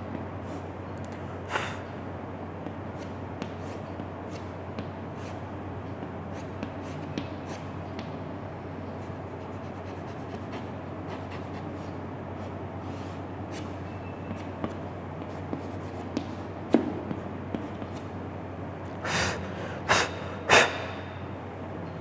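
Chalk tapping and scratching on a blackboard as a diagram is drawn, over a steady low hum. Scattered light ticks run throughout, and three longer, louder chalk strokes come near the end.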